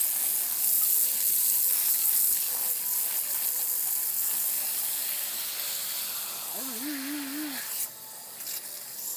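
Garden hose pistol-grip spray nozzle hissing as a jet of water sprays onto grass and a toddler's bare feet; the spray shuts off near the end.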